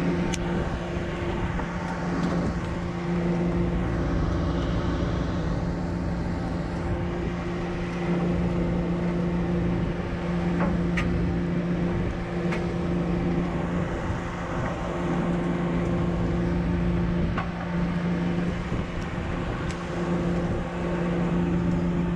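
Fishing boat's engine running with a steady low hum, under wind buffeting the camera microphone, with a few faint clicks.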